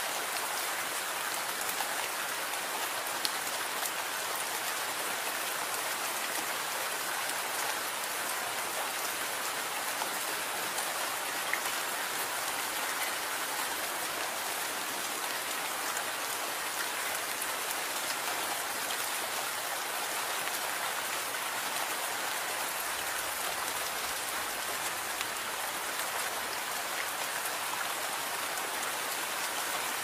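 Steady rainfall: an even hiss of rain with scattered ticks of single drops.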